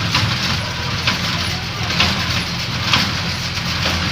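A motor vehicle's engine running steadily, with a brief rattle or clatter about once a second.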